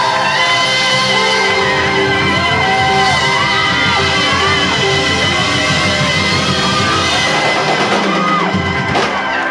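Live band playing a slow gospel-soul song, with long held notes and bending pitches over drums and bass.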